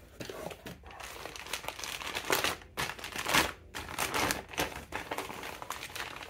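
Clear plastic bag crinkling and rustling as a heavy brake caliper wrapped in it is lifted out of a cardboard box and handled, in uneven surges, the loudest a little past halfway.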